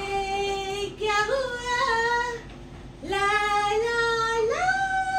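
Long wordless howls: each note swoops up and is then held for one to two seconds, with two voices overlapping around the middle.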